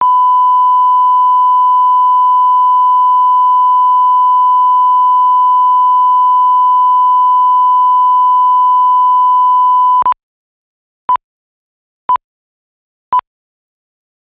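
Steady line-up test tone, one pure high-pitched note, played with colour bars for about ten seconds before it cuts off. Then four short countdown-leader beeps at the same pitch, one a second.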